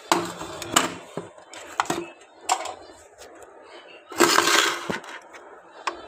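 Handling noise: a few sharp knocks and clatters, then a louder rough scraping or rustling for about half a second near the four-second mark.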